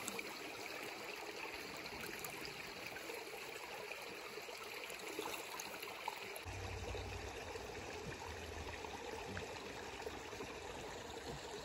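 Steady flowing water of a shallow river, with a low rumble joining about halfway through.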